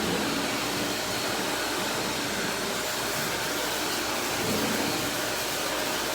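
Vacuum cleaner running steadily: a continuous rushing hiss with a faint steady whine.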